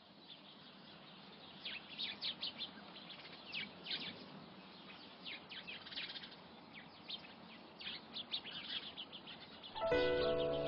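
Many small birds chirping in quick, short notes over a faint outdoor hiss. Near the end, music comes in with held notes.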